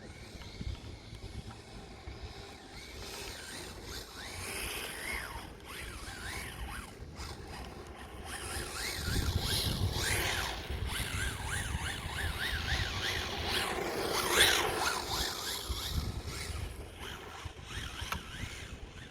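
Radio-controlled car driving, its motor whine rising and falling again and again as it speeds up and slows down, loudest about fourteen seconds in, with wind on the microphone.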